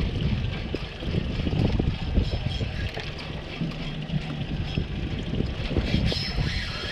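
Wind buffeting the microphone on a small boat at sea, an uneven low rumble that swells and fades in gusts.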